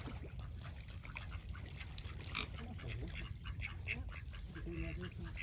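Birds calling: a rapid run of short, high chattering calls, with a lower call about five seconds in, over a steady low rumble.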